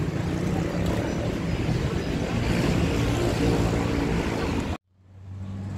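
Street traffic noise with a vehicle engine running, which cuts off abruptly near the end, followed by music starting to fade in.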